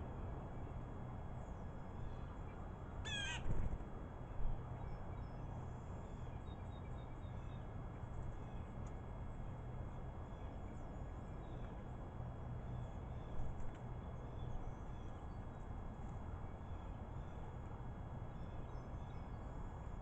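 Blue jay calling once about three seconds in, a harsh call that drops in pitch in quick steps, with faint short chirps from other birds at times over a steady low outdoor hum.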